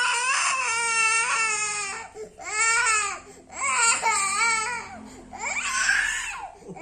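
A young child crying hard: about four long, high-pitched wails, each broken by a short gasp for breath.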